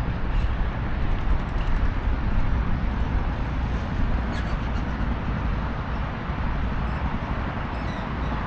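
Steady road traffic noise: a low rumble with an even hiss above it.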